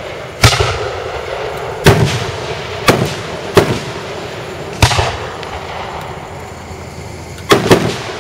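Aerial fireworks shells bursting overhead: seven sharp booms at uneven intervals, each briefly ringing out, with two in quick succession near the end.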